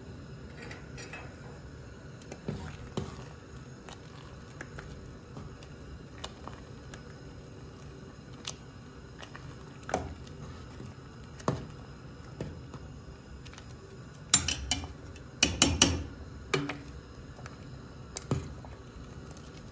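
A metal spoon stirring collard greens and cornmeal in a cooking pot: scattered clinks and scrapes against the pot, with a quick run of louder clanks about three-quarters of the way through.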